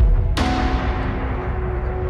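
Background music: held notes over a deep bass, with a sudden crash-like swell about a third of a second in.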